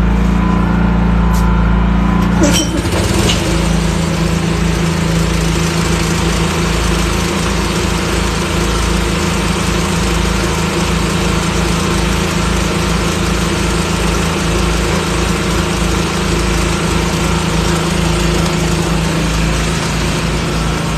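A motor is running steadily. About two and a half seconds in there is a click, and an air compressor starts and runs with a rapid low pulsing and a hiss, building back pressure after its tank dropped to about 50 psi.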